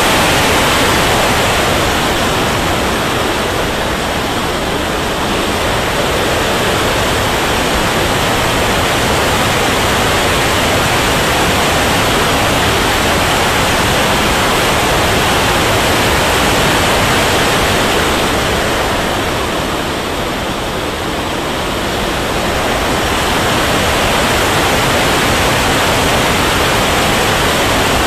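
Steady, loud rushing noise of an RC turbine jet's engine and airflow, heard from a camera mounted on the model in flight. It eases briefly twice, about four seconds in and again near twenty seconds.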